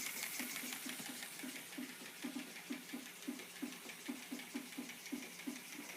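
Lego motor-driven pneumatic pump running, its piston strokes coming in a quick even rhythm of about three a second over a steady motor hum.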